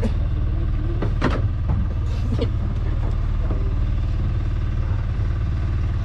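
Fishing boat's engine running with a steady low hum. Short knocks come about a second in and again near the middle.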